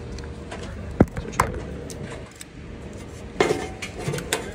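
Sharp plastic clicks and rattles of electrical wiring being handled: a jumper wire is pulled out and the DEF dosing valve connector is plugged back in. Two clicks come about a second in, and a cluster of knocks and rattles comes near the end.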